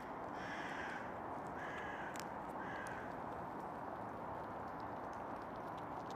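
Crows cawing: three short, harsh caws within the first three seconds, over steady background noise.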